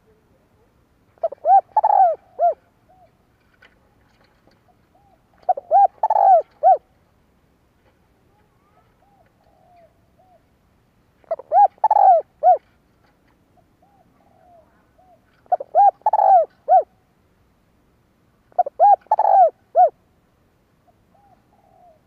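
Spotted dove cooing: five phrases of several short, mellow coos each, repeated every three to five seconds, with a few soft single coos in between.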